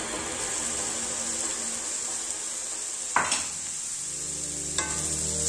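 Vegetables sizzling steadily in a hot cast-iron skillet as shredded roast chicken is tipped in, with one sharp knock a little after three seconds. Background music comes in near the end.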